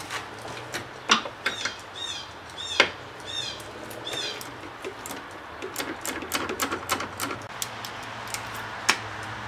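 A wrench working the master cylinder's 15 mm mounting nuts: scattered metal clicks and taps, with a run of quick ratchet-like clicking in the middle. A few short high chirps repeat about half a second apart early on.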